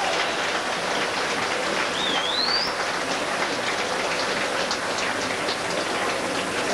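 Steady hubbub of a large indoor crowd, with a short rising squeal about two seconds in.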